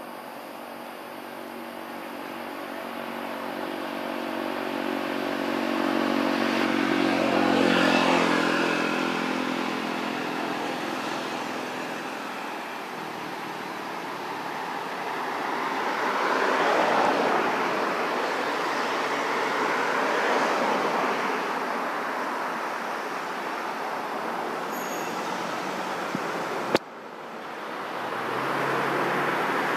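Distant motor engine noise that swells to a peak about eight seconds in and then fades, followed by a rushing noise that rises and falls like passing traffic, with an abrupt break near the end.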